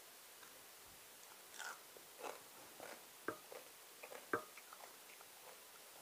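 Faint chewing and mouth sounds of someone eating, broken by a few short sharp clicks, the two clearest about three seconds and four and a half seconds in.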